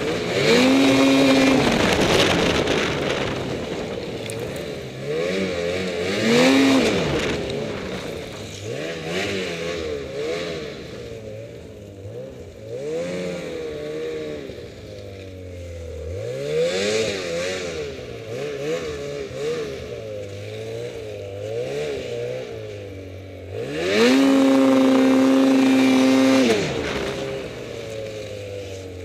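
Ski-Doo Summit X 800R E-TEC two-stroke twin snowmobile engine revving up and down over and over as the throttle is worked, held loud at high revs briefly at the start and again for about two and a half seconds near the end.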